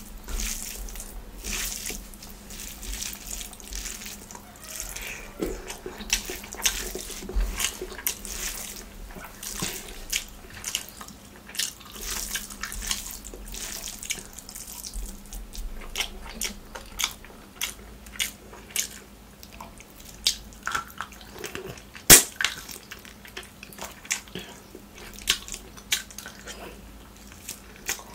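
Close-miked eating by hand: fingers squishing and mixing rice with mutton curry gravy, and mouth chewing and smacking, heard as a string of short wet clicks. One sharp, louder click comes about three quarters of the way through.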